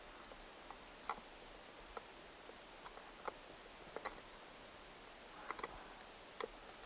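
Light, irregular clicks and taps of a small screw and a motor being handled against a ride-on toy's gearbox while fitting a replacement wheel motor, a cluster of quick clicks about two-thirds of the way in.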